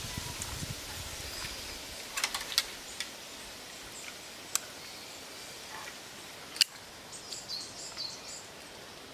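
Outdoor background noise with several sharp clicks, the loudest about two-thirds of the way in, followed by faint high chirps like birdsong.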